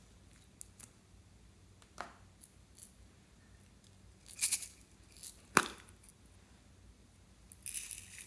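Slime and a plastic toy container being handled: scattered soft clicks, two sharp pops about 2 and 5.5 seconds in, the second the loudest, and short crackles at about 4.5 seconds and near the end.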